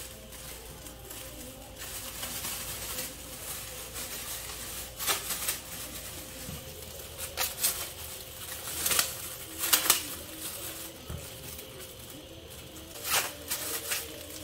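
Thin plastic bag rustling and crinkling in short spells, several times over, as handfuls of boiled cassava leaves are gathered into it. A faint steady hum runs underneath.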